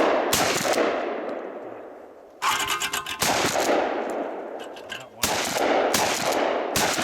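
Mossberg 535 pump-action shotgun firing several shots a second or two apart, each a sharp blast followed by a long echoing decay.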